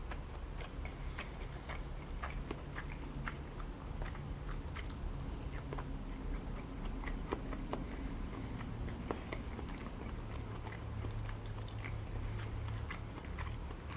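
A person chewing raw sashimi: soft, wet mouth sounds with many small irregular clicks.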